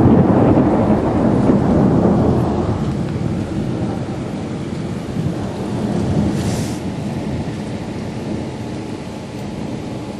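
Thunder rumbling over heavy rain, loudest at the start and fading away over the next few seconds, with the rain carrying on; a short hiss a little past halfway.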